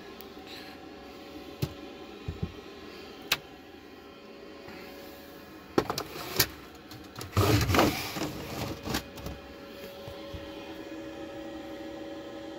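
Bali blackout cellular shade being raised by hand: a few light clicks and knocks at the bottom rail, then a louder rustle in the second half as the pleated fabric lifts. A steady low hum runs underneath.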